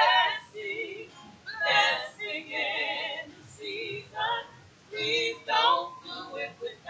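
Small church choir of women and men singing, in short phrases with heavy vibrato and brief gaps between them.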